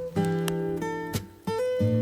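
Background music: acoustic guitar chords, struck and left to ring.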